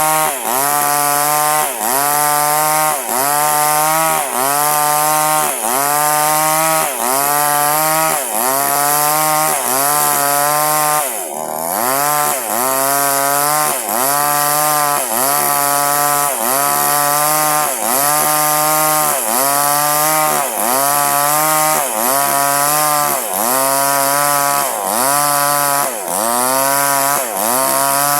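Chainsaw cutting durian wood. The engine's pitch sags under load and picks back up about once a second in a steady rhythm as the chain is worked through the cut.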